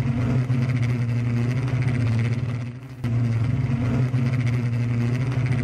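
Steady low hum of a 16-rotor electric multicopter's motors and propellers, dipping briefly about three seconds in.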